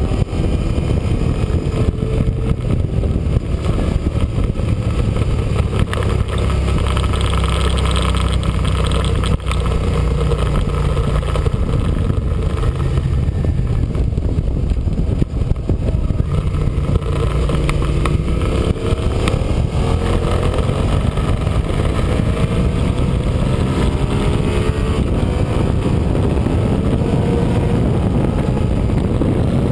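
Sport motorcycle engine running at track pace, its revs climbing and dropping through gear changes, under heavy wind rush on the bike-mounted camera.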